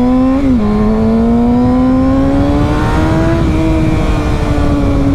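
Kawasaki sport bike engine heard from the rider's seat with wind rush on the microphone: the engine note climbs under acceleration, drops quickly at an upshift about half a second in, climbs again, then falls slowly from about three and a half seconds as the bike eases off.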